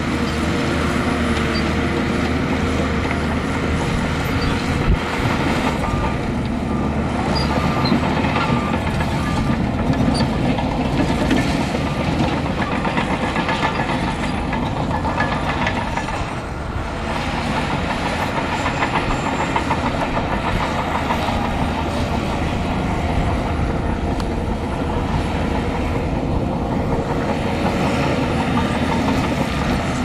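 Bulldozer's diesel engine running steadily under load with a continuous metallic clatter. Faint reversing-alarm beeps come in about six seconds in and again near the end.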